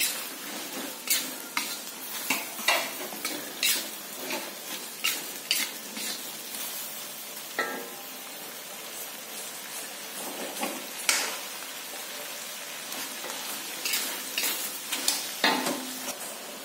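Metal spatula scraping and knocking against a stainless steel wok while vegetables sizzle in hot oil during stir-frying. The knocks come in quick runs, with a spell of mostly steady sizzling in the middle.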